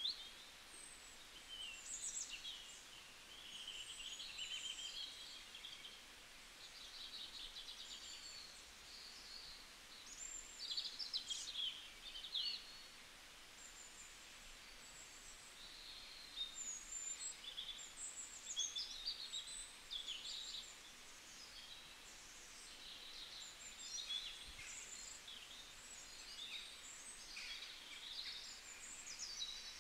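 Birds chirping and singing, many short overlapping calls and quick whistled glides, over a faint steady hiss.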